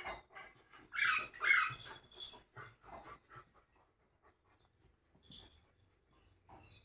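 Labradors, an adult and a puppy, making short play noises while they tug at a cloth. The loudest are two sounds about a second in, followed by a few quieter ones, then it goes mostly still.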